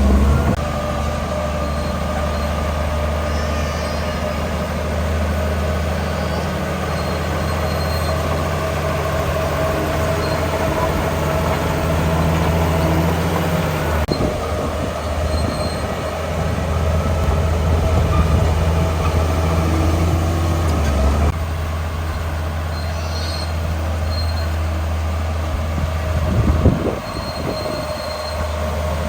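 Bulldozer's diesel engine working steadily under load, with a steady metallic squeal from its steel tracks. There is a louder burst near the end.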